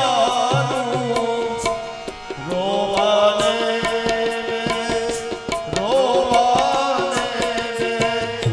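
Harmonium playing a melody over a held drone, with tabla strokes keeping a steady rhythm: devotional bhajan accompaniment.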